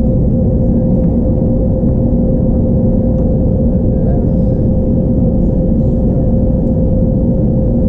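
Airbus A321neo cabin noise on approach, heard from a window seat beside the engine: a loud, steady engine drone and airflow rumble with a constant hum.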